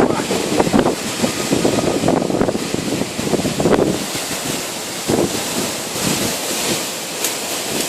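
Storm-force wind gusting: a continuous rushing noise that surges and eases.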